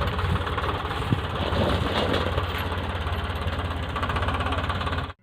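Eicher 557 tractor's diesel engine running steadily with a fast, even knock, cutting off abruptly near the end.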